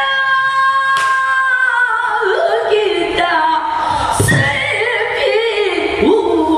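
Female pansori singer's voice holding a long note, then sliding down into a wavering, shaking phrase. One sharp knock from the accompanying buk barrel drum about a second in.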